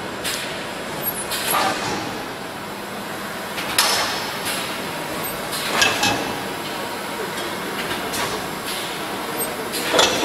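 Automatic CNC screen printing machine for glass bottles running: a steady mechanical noise with short sharp clacks recurring about every two seconds as it cycles.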